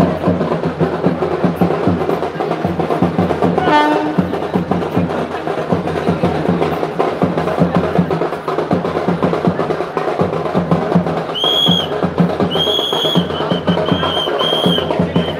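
Drums and other percussion playing a fast, steady beat. A shrill whistle-like tone sounds in several short blasts in the last few seconds.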